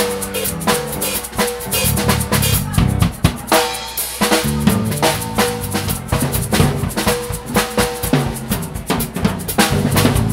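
Jazz drum kit played with sticks: rapid, busy snare hits and rimshots, with bass drum kicks and cymbal strokes.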